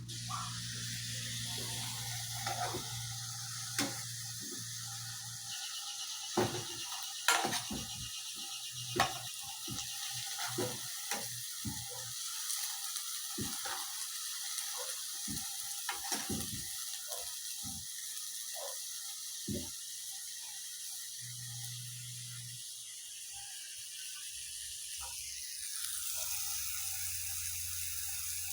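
Nopales and eggs sizzling in a frying pan, with a spatula scraping and knocking against the pan now and then. A low hum comes and goes underneath.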